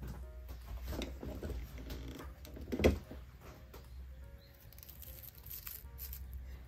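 Soft background music with light rustling as fingers adjust the dried flowers of a wreath, and one sharp knock about three seconds in.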